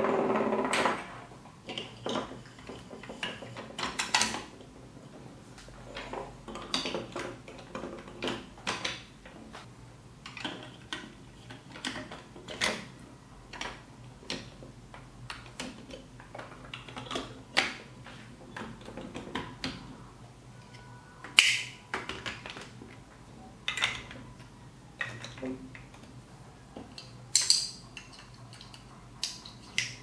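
Hard plastic building-block pieces clicking and clattering as hands fit gear wheels onto axles and snap parts together: irregular sharp clicks and knocks, with a brief rustle of handled pieces at the start and a couple of sharper snaps in the second half.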